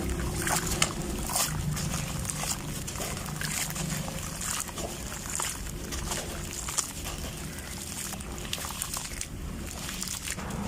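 Dry grey sand-cement crumbling and crunching: a steady run of irregular, crisp crackles.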